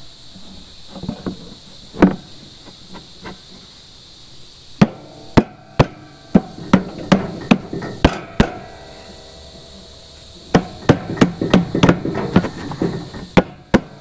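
Irregular sharp metallic knocks and taps, each ringing briefly: one about two seconds in, then two quick runs of strikes, about five and ten seconds in.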